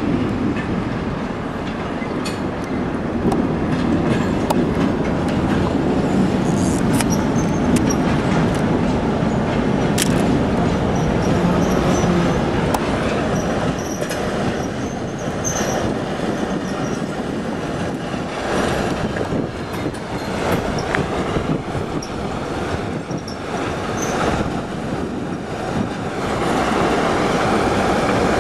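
TEM2UM shunting diesel locomotive running as it moves slowly through the yard with a string of freight wagons: a steady diesel rumble, with wheels squealing on the rails and sharp clicks from wheels over rail joints.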